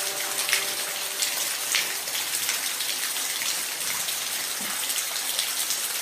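Steady rain falling, with scattered individual drops heard above the even hiss. Faint held tones of background music die away in the first second or so.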